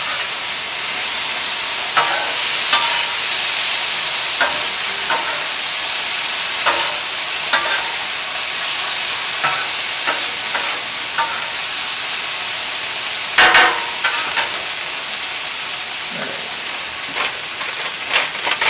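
Black beans with onion and garlic sizzling steadily on a Blackstone flat-top steel griddle as they heat, while a metal spatula scrapes and taps across the hot steel, stirring and spreading them. The sharp clicks come scattered through, with the loudest cluster about two-thirds of the way in.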